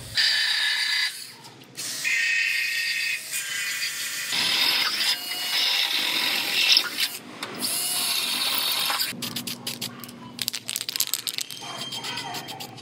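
Cordless drill boring holes through sheet steel in several short bursts, its motor whine rising and falling. Then a spray can rattles in a quick run of clicks as it is shaken, and sprays in a brief hiss near the end.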